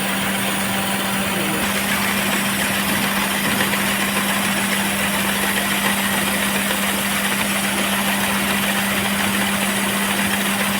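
Maruti Suzuki Celerio's three-cylinder petrol engine idling steadily with cylinder 1 not firing, a misfire caused by a failed ignition coil.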